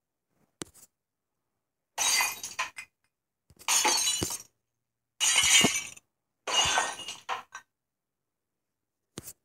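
Breaking-glass sound effect: glass shattering four times, a little over a second apart, each crash followed by a few smaller clinks of falling pieces.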